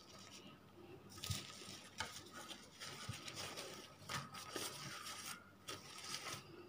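Faint crinkling and rustling of a thin food wrapper sheet being handled by hand on a ceramic plate, with scattered light taps and clinks against the plate.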